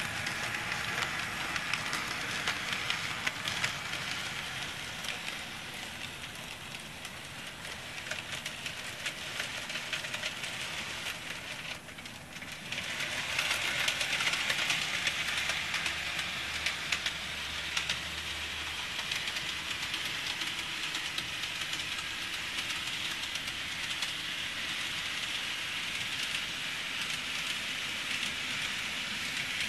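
N-gauge model electric train (KATO 205 series) running on its track: a steady whirring rattle of small wheels and motor with fast faint clicking. It dips briefly about twelve seconds in, then comes back louder. The train then in view is one the owner says has run badly since it was bought, even after servicing.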